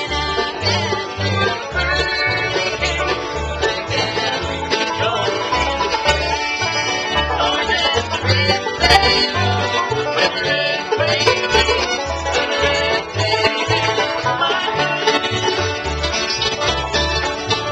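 Live acoustic bluegrass: acoustic guitar and resonator guitar picking, over a bass line of about two notes a second.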